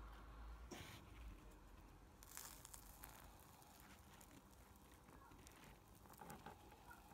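Faint handling sounds as a fried sago coconut ball is lifted from a plate and pulled apart, with a few quiet crackles and soft tearing spread over several seconds.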